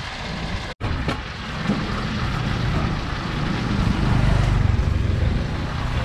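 Street traffic noise, with a vehicle's engine rumble growing louder past the middle. The sound cuts out for an instant about a second in.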